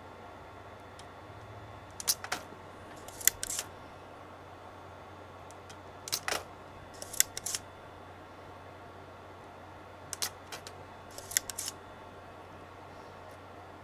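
Sharp clicks and short snaps from small workbench tools handled while desoldering a circuit board, coming in three quick clusters about four seconds apart, over a steady low hum.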